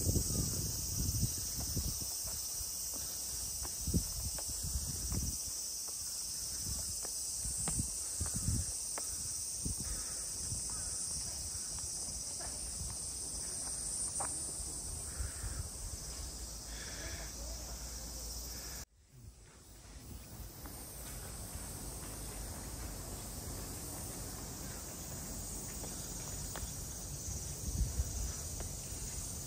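Cicadas shrilling steadily in the trees, with low thumps of footsteps in the first half. The sound cuts out abruptly about two-thirds of the way through and fades back in.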